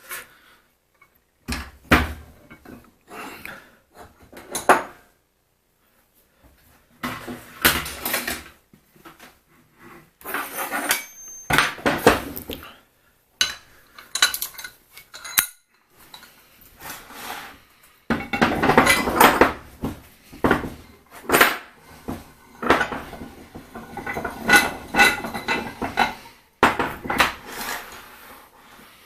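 Metal tools and vise parts clinking and clattering as they are handled on a workbench, in irregular bursts with a short pause.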